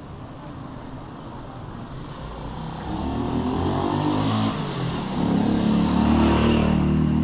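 A motor vehicle approaches and passes close by, its engine growing louder from about three seconds in and loudest near the end.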